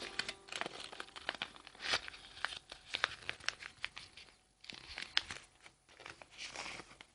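A sheet of A4 paper being handled and folded, crinkling and rustling with small irregular crackles.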